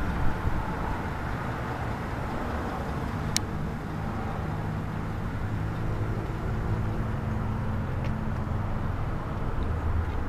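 Vehicle engine idling steadily, with a single sharp click a few seconds in.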